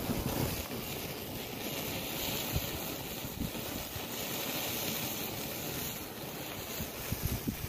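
Wind buffeting the microphone outdoors: a steady rushing noise with a few low thumps of gusts.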